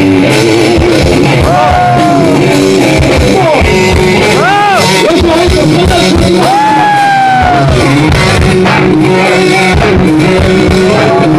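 Rock band playing loud: a steady drum and bass beat with electric guitar, and several long arching pitch glides over the top.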